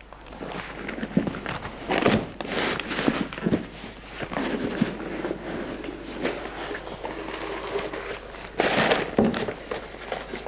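Stiff brown wrapping paper rustling and crinkling in irregular bursts as it is opened and pulled away from a wooden mould frame; the loudest crinkle comes near the end.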